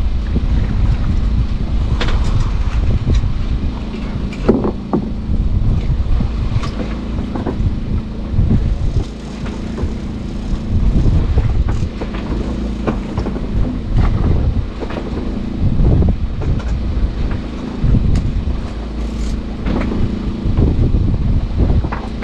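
Fishing boat's engine running steadily under way, a low even hum, with wind on the microphone and scattered short knocks and splashes.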